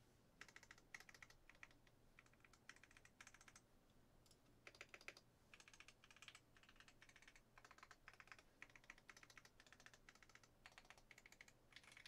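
Fast typing on a KBD8X mkii custom tenkeyless mechanical keyboard with lubed Alpaca linear switches on a brass plate: a faint, quick clatter of keystrokes in bursts of about a second, with short pauses between them.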